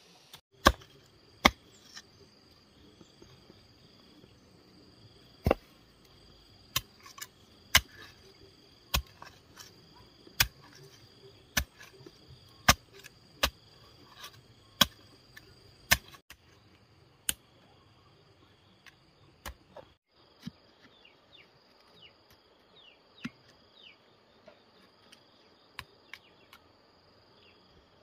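Repeated sharp strikes of a hand tool on a hard material, roughly one every second, growing fainter and sparser after about 17 seconds. Insects buzz steadily throughout.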